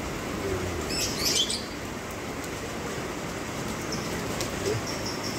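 Steady hiss of rain falling on wet ground, with a short scratchy burst from the rain-soaked pet lovebird about a second in. A cricket starts chirping in quick high pulses near the end.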